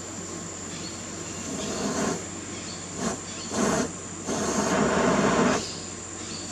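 A balloonful of syngas (carbon monoxide and hydrogen) forced out through the balloon's neck and burning as an open flame, rushing in several spurts as the balloon is squeezed, the longest lasting over a second near the middle. Insects buzz steadily underneath.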